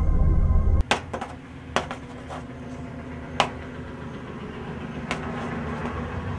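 Organ music cuts off abruptly about a second in, followed by a few scattered sharp clicks and knocks of a package being handled and opened by hand.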